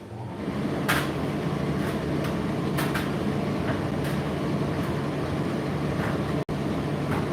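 Indesit IDC8T3 condenser tumble dryer starting up and running, its drum turning with a steady hum and irregular sharp knocks as items in the load hit the drum.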